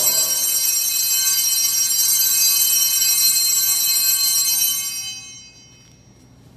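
Altar bells (sanctus bells) ringing steadily with a bright, high-pitched ring at the elevation of the consecrated host after the words of consecration. The ringing dies away about five seconds in.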